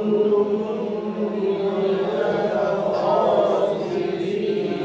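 A group of voices chanting a line of Quran recitation together in drawn-out, held tones, repeating after the teacher in talaqi style.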